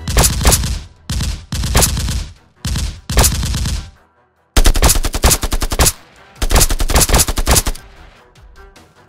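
Automatic-gunfire sound effects in about five bursts of rapid shots, each burst a second or so long, with a brief silence about four seconds in. The shots fade to quieter ones near the end.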